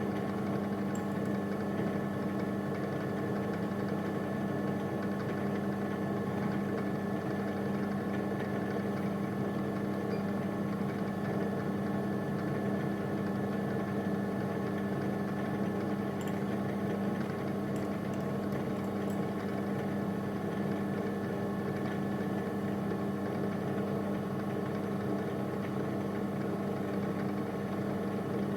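Milling machine running steadily, an even mechanical hum with no change in speed.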